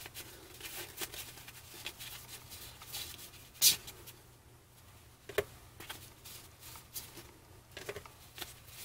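A stack of glossy trading cards being handled and sorted by hand: cards slide and tap against each other in short rustles and clicks, the sharpest about three and a half seconds in.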